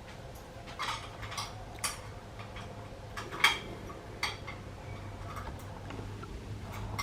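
A handful of sharp metallic clicks and clinks, like tools and small metal parts being handled and set down, the loudest about three and a half seconds in, over a low steady hum.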